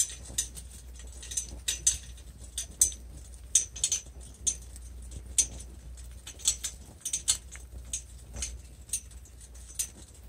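Horse-drawn cart and harness metalwork clinking and rattling as a harnessed horse walks: irregular sharp clicks, one or two a second, over a low steady rumble.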